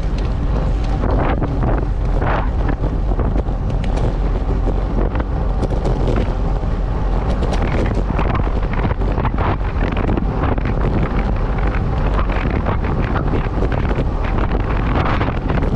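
Wind buffeting the microphone of a camera mounted on a road bike riding at 30 to 50 km/h, a steady rush with road and tyre noise underneath. Scattered short clicks and knocks run throughout.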